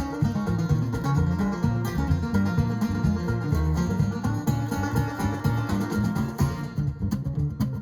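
Acoustic string band playing an instrumental tune: guitar and other plucked strings over a moving bass line, with percussion.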